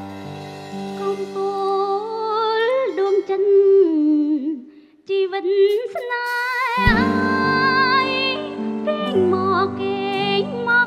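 A woman singing a slow ballad with vibrato into a microphone over held keyboard chords. About halfway through, the music briefly drops almost to nothing. Then the voice comes back with a fuller accompaniment and a deep bass note.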